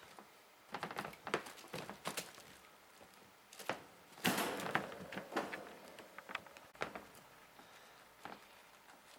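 Foreign White Siamese kittens playing: a run of light taps, knocks and scrabbling, with a louder rustling scuffle about four seconds in.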